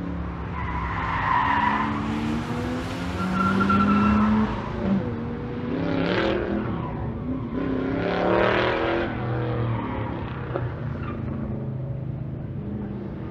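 Chevrolet Corvette race car engine running hard past the trackside, its pitch rising and falling as it accelerates and passes twice, with brief tyre squeal about a second in. It fades away near the end.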